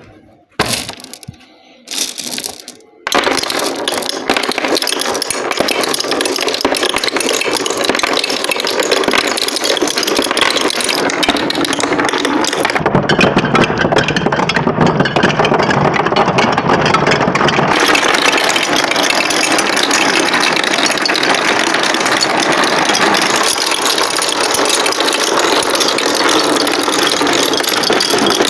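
Hundreds of marbles rolling and clattering along a plastic marble-run track: a few short bursts, then from about three seconds in a dense, continuous rattle.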